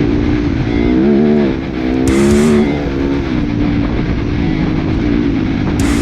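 Dirt bike engine running, its pitch rising and falling as the throttle opens and closes, with the clearest swings about one and two seconds in.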